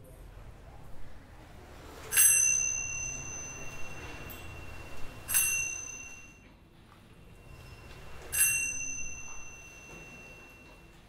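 A pair of small hand cymbals struck three times, about three seconds apart. Each strike rings on as a clear high tone that fades away over a few seconds.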